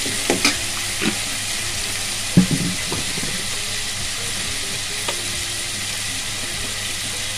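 Chopped onions, tomatoes and green chillies sizzling steadily in hot oil in a metal pot, with a metal spoon stirring through them and knocking against the pot a few times, most sharply about two and a half seconds in.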